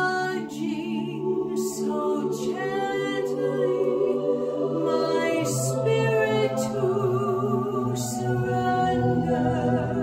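A woman singing a slow worship song, one voice over held backing chords that change about five seconds in.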